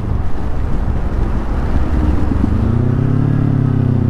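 Motorcycle running on the road with heavy wind rumble on the microphone. About two and a half seconds in, the engine note comes through clearly and rises, then falls in pitch.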